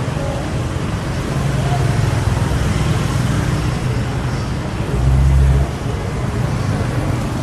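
Street traffic running steadily, with a low engine rumble that swells louder for about half a second around five seconds in.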